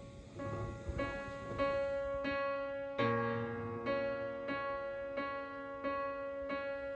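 Background music: a slow, soft piano piece, notes struck at an even, unhurried pace with a chord change about three seconds in.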